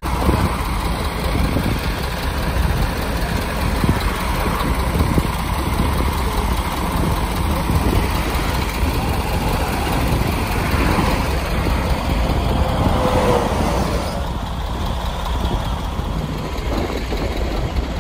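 Motor vehicle running: steady engine and road noise, strongest in the low end.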